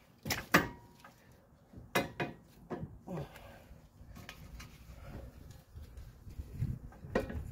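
Scattered metal clanks and knocks as a 2000 Kia Sportage's front hub is handled and lined up on the upper ball joint. The loudest comes about half a second in, with a few more around two to three seconds and one near the end.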